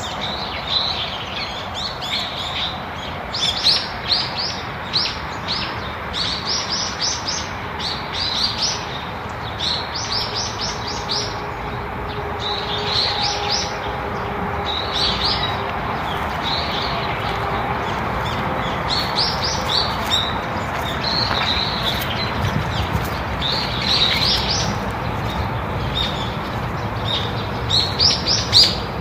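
Small songbirds chirping: runs of short, high chirps in quick succession, repeated again and again over steady background noise.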